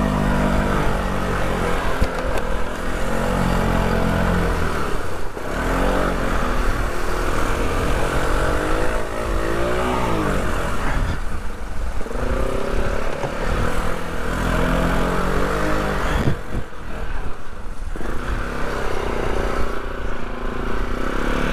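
Polaris off-road vehicle's engine working hard under load, its pitch rising and falling as the throttle is opened and eased, with brief let-offs about five seconds in and again near the end.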